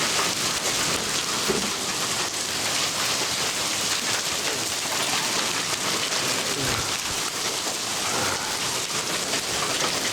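A storm of heavy rain mixed with hail, pelting down steadily as a dense hiss of drops and small stones hitting surfaces.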